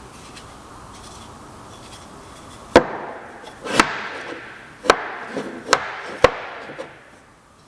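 Wooden joint being knocked together: five sharp wooden knocks, starting about three seconds in and coming roughly a second apart, each followed by a short rasping tail.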